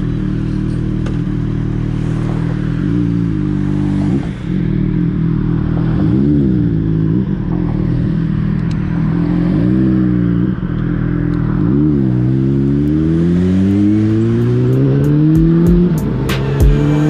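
Suzuki GSR 600's inline-four engine through an Akrapovič titanium exhaust, idling with several short throttle blips, then pulling away with the engine note rising steadily as the bike accelerates.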